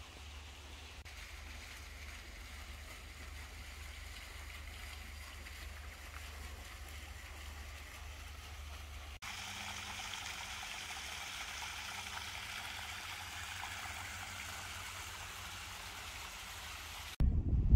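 Steady, even outdoor hiss over a low rumble, like running water or wind. About nine seconds in it changes abruptly to a brighter, slightly louder hiss. Just before the end, a much louder sound cuts in.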